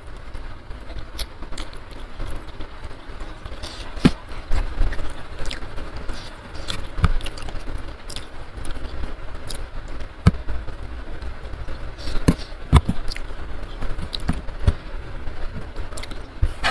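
Close-miked eating sounds: chewing and wet mouth clicks, with scattered small ticks from fingers picking steamed tuna flesh off the bones, over a steady low background noise.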